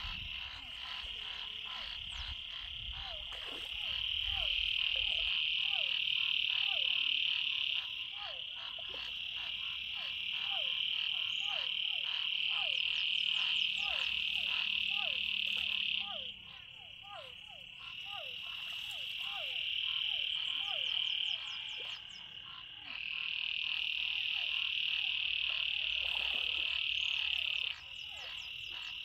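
Chorus of frogs and toads calling from flood water after heavy rain: a loud continuous high trill that breaks off now and then, over repeated short falling calls at a bit under two a second.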